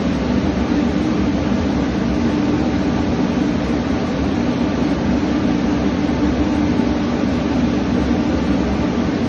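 Steady drone of an anchored gas tanker's on-board machinery: a constant low hum under an even rushing noise, unchanging throughout.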